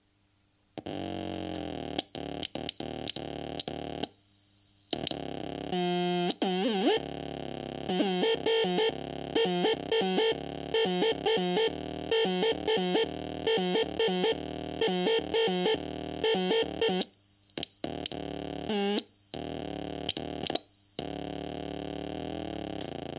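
Circuit-bent late-1970s children's voice amplifier played by fingers on its touch points and switches. It gives buzzing electronic drones, warbling pitch glides and high piercing bleeps that cut in and out abruptly, with a stuttering pulse of about two a second through the middle.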